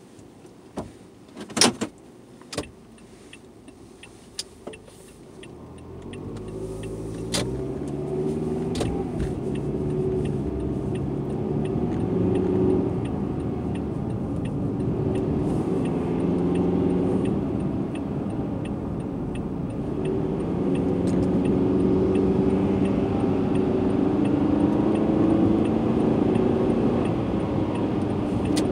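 Car engine and road noise heard from inside the cabin. It starts with a few sharp clicks and knocks, the loudest a couple of seconds in. About six seconds in the engine pulls, rising in pitch as the car accelerates onto the interstate, then it settles into a steady cruise with engine and tyre noise and a faint regular ticking.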